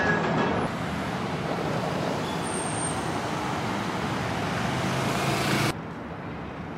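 Road traffic on a city street: a steady rush of passing cars, which cuts off abruptly about a second before the end, leaving a quieter hum.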